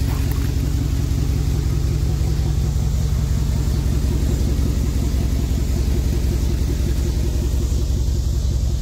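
Truck engine running steadily while driving, a low, even drone with no change in pitch.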